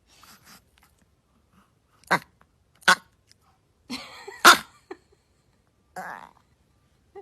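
A dog making three short, sharp, cough-like sounds, with softer breathy noises between them.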